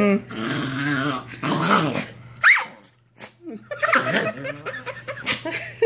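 Small dog growling and grumbling playfully while being rubbed with a towel, with a short rising squeal about halfway through.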